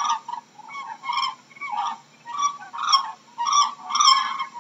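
Cranes calling: a run of short, repeated calls, about two a second.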